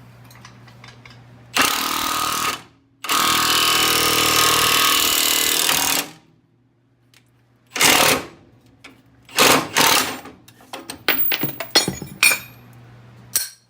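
Air impact wrench hammering in bursts: one about a second long, then a steady run of about three seconds, followed by several short blips of the trigger.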